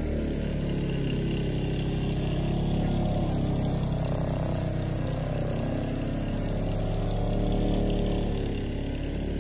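Handheld electric orbital buffer running with a steady hum, its pad working cutting compound into heavily oxidized fiberglass gelcoat.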